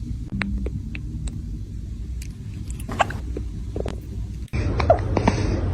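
Kitten hiccuping: short, sharp hics, a few in quick succession, over a steady low rumble.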